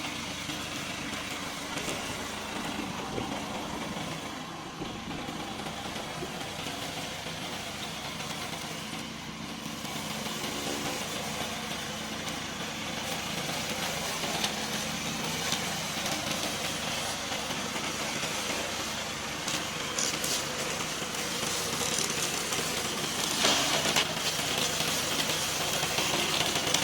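Engine of a remote-controlled tracked hillside mower running steadily, growing a little louder toward the end, with a few brief sharp noises in its last third.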